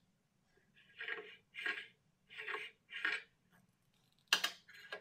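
Workpieces being handled on a table saw's metal top: four short scraping strokes about half a second apart, then a sharp click near the end.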